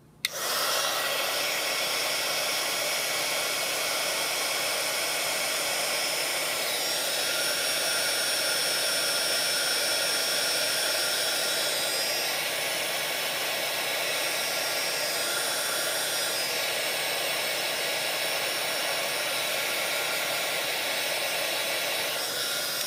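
Electric heat gun blowing steadily while it shrinks heat-shrink tubing over soldered wire leads. It comes on just after the start and is switched off at the very end.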